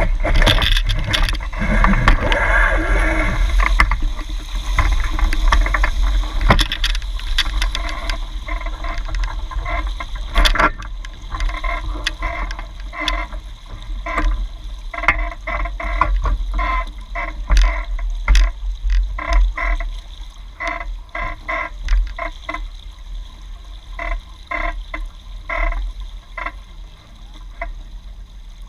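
Lake water rushing and splashing along a Hobie 16 catamaran hull right by the microphone, over a steady low wind rumble. The first few seconds are the loudest wash; after about ten seconds the water turns to a quick, irregular run of short gurgles and slaps.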